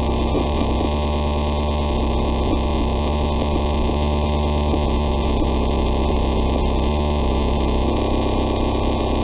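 Electrical static buzzing and humming from an old computer being overclocked, a steady glitchy buzz with a flickering texture that shifts a little now and then.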